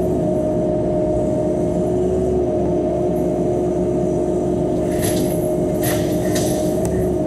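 Cat 311 excavator's diesel engine and hydraulics running steadily, heard from inside the cab, with a steady whine over the low drone. A few short sharp clatters come about five and six seconds in.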